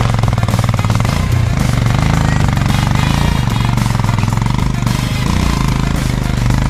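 Motorcycle engine running loud at low revs with a rapid pulsing beat. Its pitch rises and dips a few times as the throttle changes.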